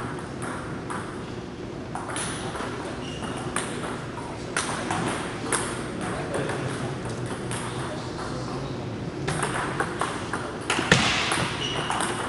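Table tennis ball clicking off paddles and table in sharp, separate pings at irregular intervals, closer together near the end, with the loudest crack about eleven seconds in.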